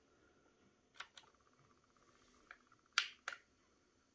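Sony TC-K611S cassette deck being switched on at its power button: a close pair of light clicks about a second in, then two sharper mechanical clicks near the end, with a faint steady buzz in between once the deck has power.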